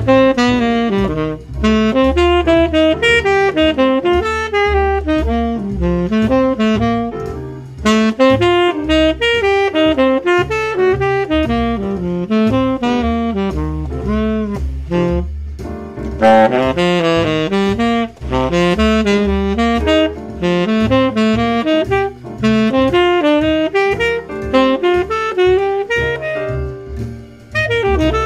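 Tenor saxophone playing rapid running lines of triad pairs over a jazz play-along backing track on a dominant F7 (concert) chord, with a bass underneath. It pauses briefly about halfway through and again near the end.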